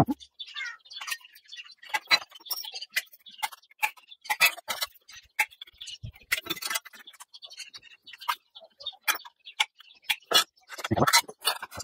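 Aviation snips cutting thin sheet steel: an irregular run of sharp snipping clicks, a few a second, as the jaws close through the metal, with a louder cluster near the end.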